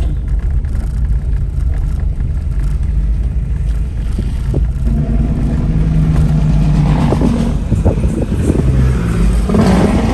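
Road and engine noise of a car driving, a steady low rumble. About halfway through a humming engine tone joins in, and the road noise grows louder toward the end, as a heavier vehicle passes close by.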